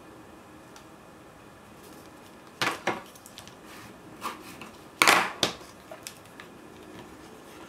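Paper and card album pages being handled and set down on a tabletop: a few sharp knocks and taps with light paper rustling, the loudest about five seconds in.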